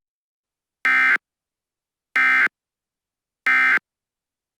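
Emergency Alert System end-of-message data tones: three short, identical bursts of digital signalling, about a second and a quarter apart, that mark the close of an alert.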